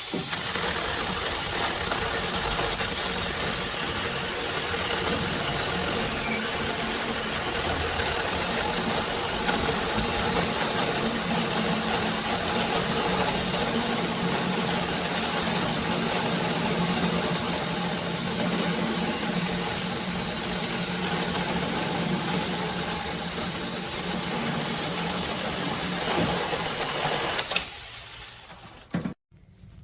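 A battery-powered 6-inch mini chainsaw (Tomyvic cordless) runs steadily while cutting through a piece of wood. It stops about four seconds before the end.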